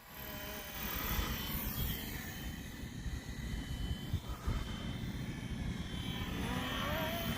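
FlyWing FW450 V3 electric RC helicopter in flight: a steady whine from the brushless motor and the chop of the spinning rotor blades. A tone rises in pitch near the end.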